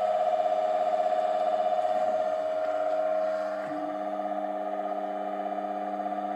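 Rebuilt ATB three-phase induction motor running on single-phase power through a 30 µF capacitor, with its new bearings fitted: a steady hum made of several fixed tones. A further lower tone joins about halfway through.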